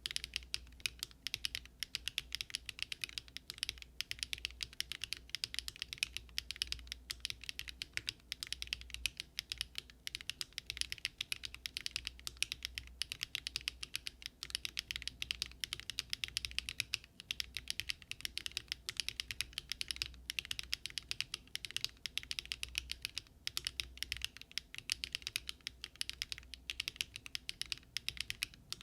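Fast, continuous typing on a Daring Run Polygon-7 custom mechanical keyboard built with Luminkey Astral switches on an aluminium plate with no foam, a steady stream of sharp keystroke clicks.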